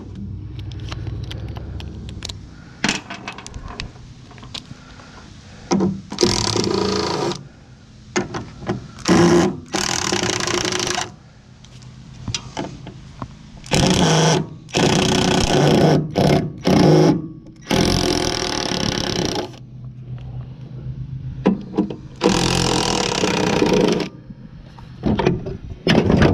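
A handheld power tool run in repeated bursts a second or two long, with sharp knocks and clanks of metal between, while an air-conditioning unit is taken apart for scrap.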